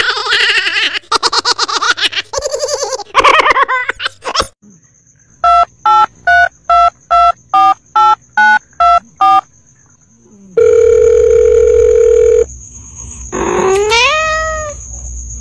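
About ten short electronic beeps in quick even succession, like a telephone tone, followed by a steady electronic tone held for about two seconds. Before them comes a wavering, voice-like sound, and near the end a rising wailing call.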